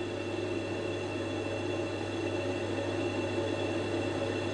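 Flue fan of a Worcester 28CDi combi boiler running steadily, a low hum with a thin high whine over it, during an ignition sequence in which the burner fails to light.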